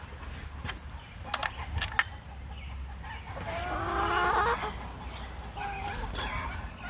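Backyard hens clucking, with a longer warbling call about halfway through, as they get excited over a treat. A few sharp clicks or taps come a second or two in.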